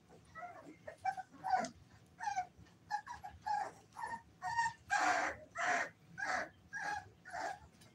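American Bully puppies whining and yipping in a string of short, high calls, about two a second, loudest around five seconds in.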